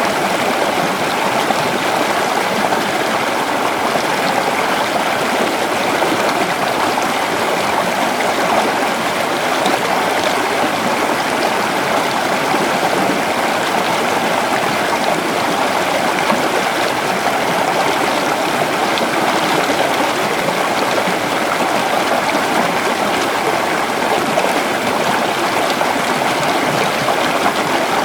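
River water flowing and babbling steadily over rocks, a continuous even rush with no breaks.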